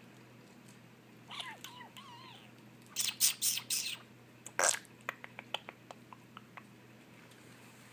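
A puppy gives a brief wavering whimper, then a quick run of sharp, puffing bursts and one louder sneeze, followed by a few light clicks.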